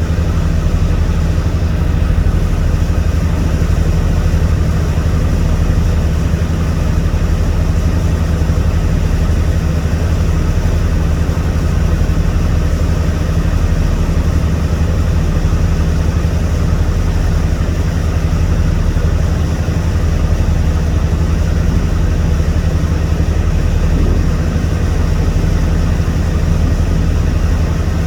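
Boat engine running steadily, heard from on board: an unchanging low engine hum under a constant wash of noise, with no changes in speed.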